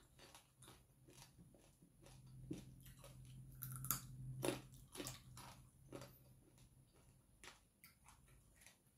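Close-up mouth sounds of chewing and biting fried mackerel: small crunches and wet clicks. A low hum joins in through the middle seconds.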